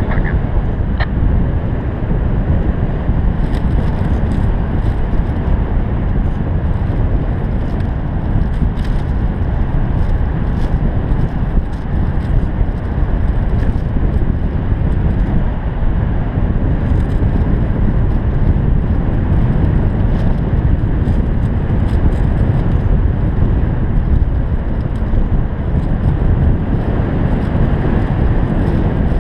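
Steady rushing of airflow buffeting the camera microphone of a paraglider pilot in flight, heavy in the low end, with faint scattered ticks above it.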